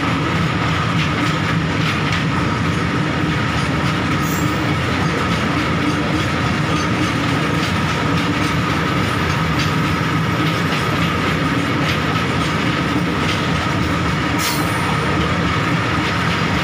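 Open freight wagons of an Indian Railways goods train rolling past close by: a steady loud rumble and clatter of steel wheels on the rails, with a thin steady high tone running through it and a couple of brief sharp clicks.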